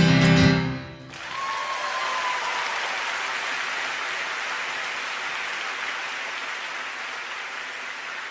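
The final chord of a live song cuts off about a second in, and the concert-hall audience breaks into steady applause that slowly fades.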